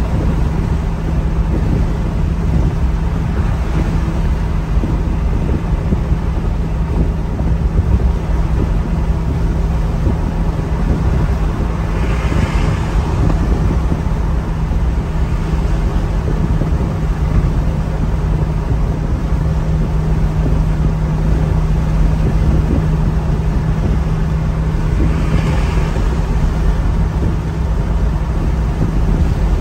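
Maserati GranTurismo's V8 cruising at steady highway speed, heard from inside the cabin: a steady low engine drone under road and tyre noise. Two brief whooshes rise and fade, about twelve seconds in and again about twenty-five seconds in.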